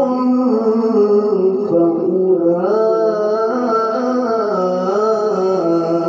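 Male qari reciting the Qur'an in the melodic tilawah style into a microphone: one long unbroken phrase of held notes with wavering melismatic turns in pitch.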